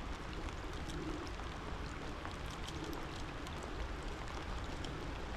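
Freezing rain falling steadily, a constant hiss of water broken by many small, scattered ticks of drops striking close by.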